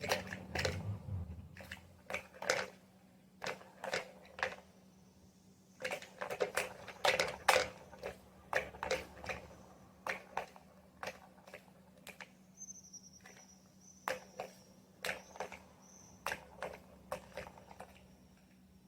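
Irregular crunching and clicking in short clusters, with a faint thin high-pitched tone partway through.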